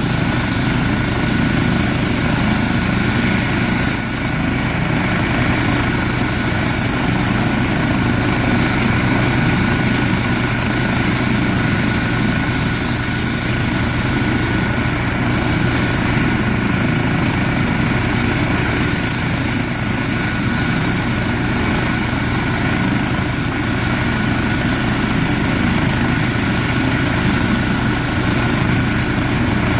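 Eurocopter EC135 air-rescue helicopter running on the ground with its main rotor turning, before lift-off: steady twin-turbine whine with a high constant tone over the rotor's low rumble.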